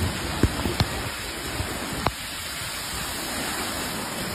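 Floodwater rushing across a street: a steady wash of running water, with a few sharp ticks about half a second, one second and two seconds in.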